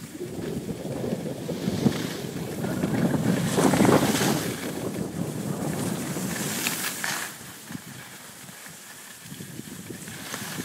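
Wind rushing over the camera microphone while skiing downhill, mixed with the hiss and scrape of skis sliding on snow. It is strongest for the first seven seconds or so, then eases.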